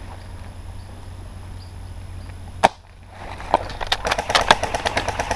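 A single sharp airsoft shot about two and a half seconds in, then a half-second later a rapid stream of clicks starts and keeps going: an airsoft gun firing full-auto.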